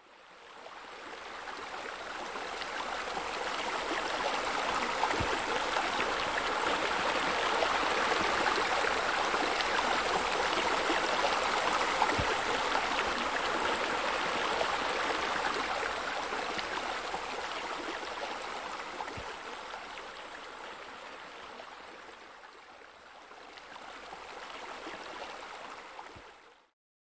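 Running water, a steady rushing flow with no pitch or beat. It fades in, swells, sinks and rises a little again, then fades out near the end.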